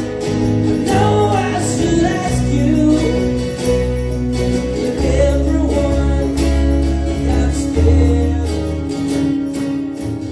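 Rock band playing live: strummed acoustic guitar over bass and percussion in the closing bars of a song, dying away near the end.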